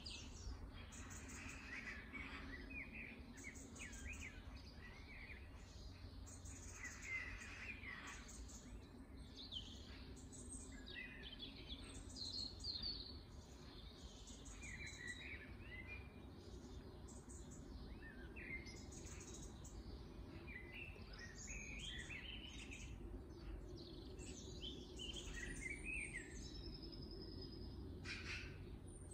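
Small garden birds chirping and calling throughout, many short high notes in quick series, with a couple of held high whistles near the end, over a steady low background rumble.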